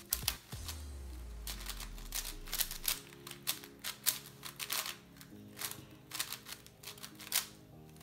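A Cubicle Wushuang M 5x5 speedcube being turned fast: quick, irregular runs of plastic clicking and clacking as its layers snap through turns, over background music.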